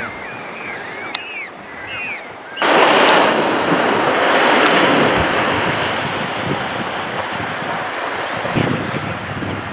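Ocean waves breaking on rocks: a loud rush of surf comes in suddenly a little over two seconds in, then goes on washing and slowly eases. Before it, a run of short, high chirping calls sounds over faint surf.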